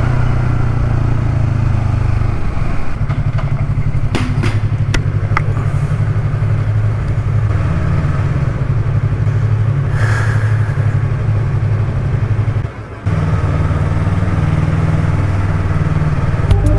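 Motorcycle riding with its engine running as a steady low rumble, a few sharp clicks about four to five seconds in, and the sound dropping out for a moment about three-quarters of the way through.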